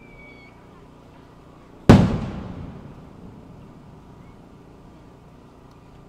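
One sharp firework bang from a Japanese aerial firework shell about two seconds in, its echo dying away over about a second.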